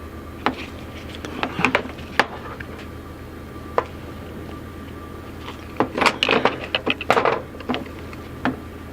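Plastic clicks, taps and rattles of a power window switch assembly being pried and pulled apart by hand, with a quick run of clicks and snaps about six seconds in.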